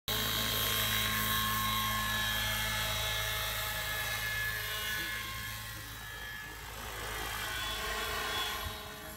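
Vario scale radio-controlled Schweizer 300C model helicopter lifting off and climbing away, its motor and rotor running steadily with several held tones. The sound grows fainter in the second half as the model gains height and distance.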